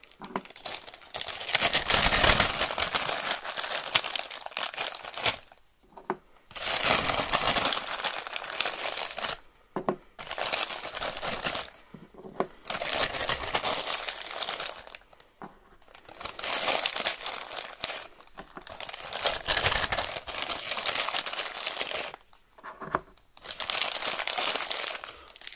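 Clear plastic bag holding wooden number discs crinkling as it is shaken and rummaged through, in bursts a few seconds long with short pauses between them.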